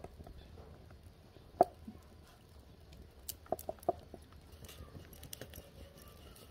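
Light, scattered knocks and taps of hands and a wooden rolling pin on a wooden chapati rolling board as a chapati is folded and rolled. One sharp knock comes about one and a half seconds in, and a quick cluster of three or four taps comes a couple of seconds later, over a low steady hum.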